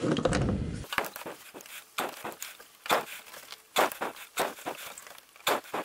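Hands working a rubber heater hose among parts in a car's engine bay. A muffled rumble for the first second gives way to irregular sharp clicks and knocks.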